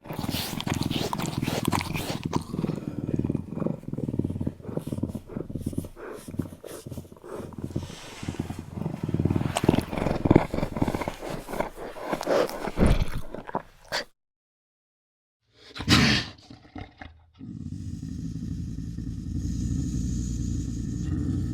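Lynx growling: a rough, rapidly pulsing call for about fourteen seconds. After a short break comes one brief loud burst, then a steadier, even call with a held pitch.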